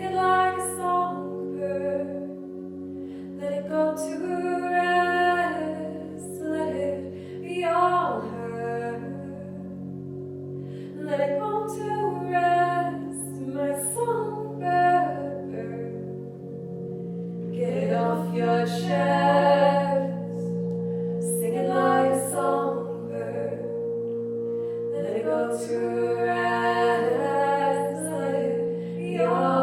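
Live-looped female vocals: held, stacked vocal tones repeat under a sung melody that slides between notes. About halfway through, the held chord shifts and a fuller, lower layer comes in.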